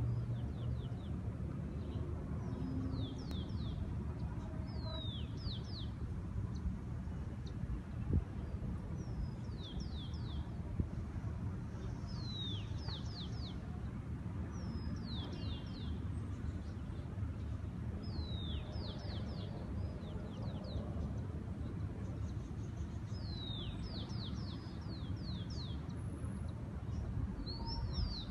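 A bird singing the same short phrase of three or four quick, high, falling whistles, repeated every few seconds, over a steady low background rumble.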